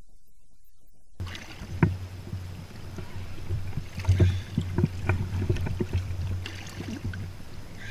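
Choppy lake water slapping and splashing against the inflatable pontoon boat's tubes, with a steady low rumble of wind on the microphone, starting about a second in. Sharp slaps come every second or so, the loudest at about two and four seconds in.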